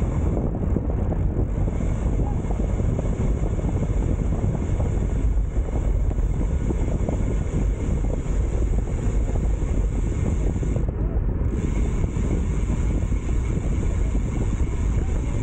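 Steady wind noise rumbling over the microphone of a bicycle-mounted action camera while riding at speed.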